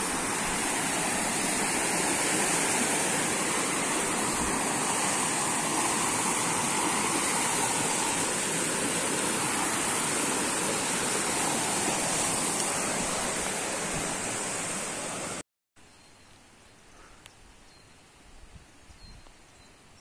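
Small mountain stream rushing and splashing over stones and a little cascade, a steady even sound. It cuts off abruptly about three-quarters of the way through, leaving only faint outdoor sound.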